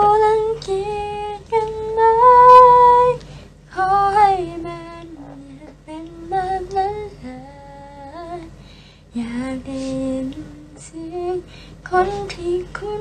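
A young woman singing a Thai song unaccompanied, in long held notes with short breaks between phrases.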